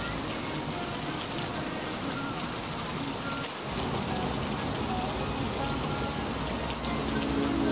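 Steady rain falling, an even hiss with scattered faint drop ticks. Background music comes in near the end.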